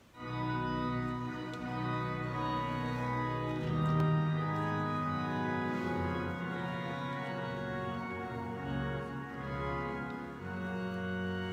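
Church organ playing full, sustained chords with a deep bass, starting suddenly just after the beginning. It is the closing voluntary that follows the dismissal.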